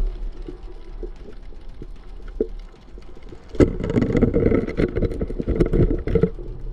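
Underwater, a sharp knock about three and a half seconds in as a spear strikes a goatfish on the rocky bottom. It is followed by some two and a half seconds of dense crackling and rumbling, over a low steady hum.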